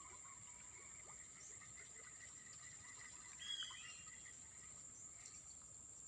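Faint wild ambience: a steady high-pitched insect drone over a lower pulsing chirring, with one short bird call about three and a half seconds in.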